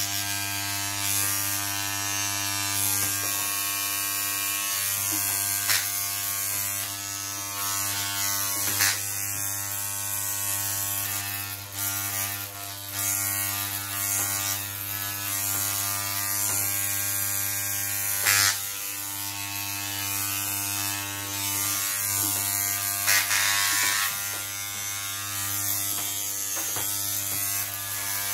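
Corded electric hair clippers buzzing steadily while cutting short hair, with brief louder moments as the blades pass through it.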